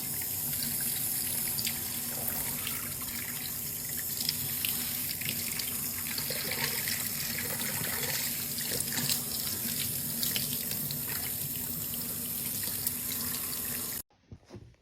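Water running steadily from a tap into a sink, as a continuous hiss that cuts off suddenly near the end.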